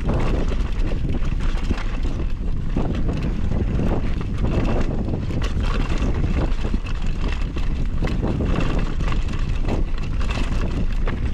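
Wind buffeting the camera microphone on a fast mountain-bike descent, over tyres rolling on gravel and rock. The bike rattles with frequent small knocks as it runs over the rough trail.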